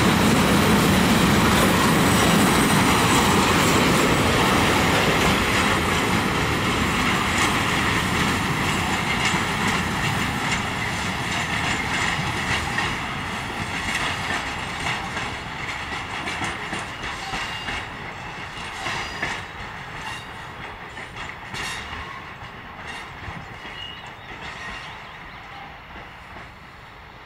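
Freight train of open-top wagons rolling past and moving away, its rumble fading steadily into the distance, with faint wheel clicks on the rails in the second half.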